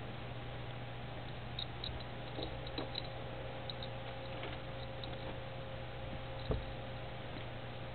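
A kitten playing with a toy mouse on a stick: faint scattered ticks and scratches as it paws and bites at it, then one soft thump about six and a half seconds in. A steady low hum runs underneath.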